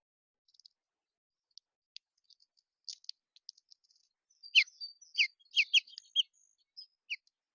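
Small songbirds chirping: scattered short, high chirps and clicks, then about halfway through a run of louder, quick down-slurred notes, several in close succession.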